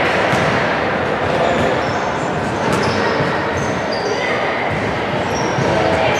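Basketball game in an echoing sports hall: a ball bouncing and thudding, shoes squeaking briefly on the wooden court several times, and players' and spectators' voices.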